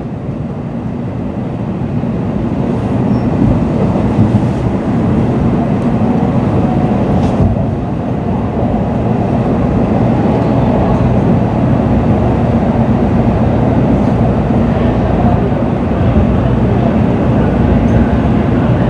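Cabin running noise of an N700-series Shinkansen coasting into a station platform: a steady low rumble and hum from the running gear, heard from inside the passenger car.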